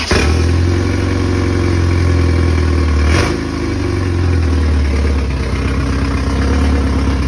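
Rebuilt Toyota 22R four-cylinder engine running loudly and steadily just after starting, with a brief break in its note about three seconds in.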